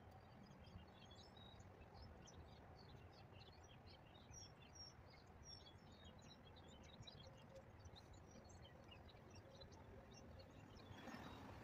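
Near silence: faint outdoor ambience with many small birds chirping over a low background rumble, and a brief soft rustle near the end.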